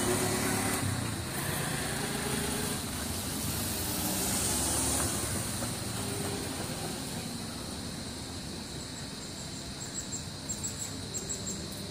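Steady outdoor background hum. In the last few seconds it carries a quick series of short, high chirps.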